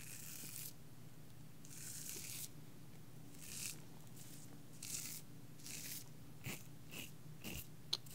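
Razor blade scraping through shaving cream in strokes close to a binaural microphone: about five slower swipes, then shorter, quicker scrapes, with a sharp click near the end.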